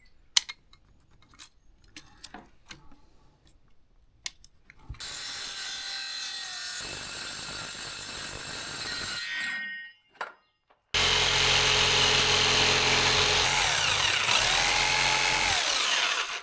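Power tool cutting a hole in a wooden door panel. First come a few light knocks and handling clicks. Then the tool runs steadily for about four seconds and stops, and after a short pause it runs again louder, its pitch wavering near the end.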